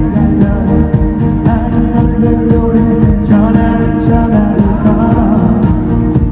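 A male pop singer singing live into a handheld microphone over loud amplified backing music, heard through an arena's sound system.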